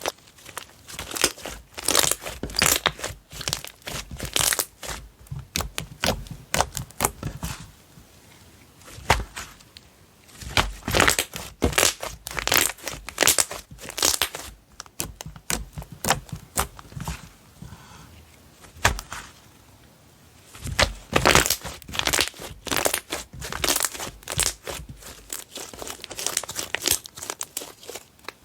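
Slime being squeezed, stretched and poked by hand, making irregular crackling clicks and pops in bursts with short pauses between them.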